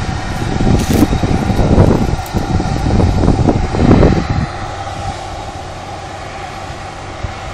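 Claas Lexion 670 combine harvester running as it harvests grain: a steady engine and machinery drone with a constant hum. An uneven low rumble lies over it for the first four seconds or so, then drops away, leaving the drone.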